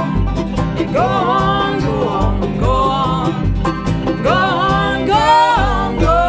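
Bluegrass band playing live: banjo, mandolin, fiddle, acoustic guitar and upright bass, with several voices singing together over the picking.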